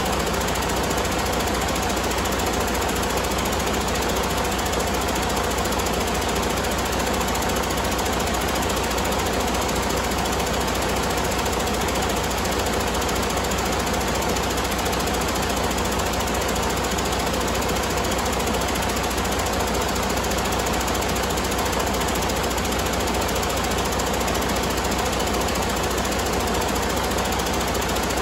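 Detroit DD15 inline-six diesel engine running steadily, a fast, even clatter that holds at one speed.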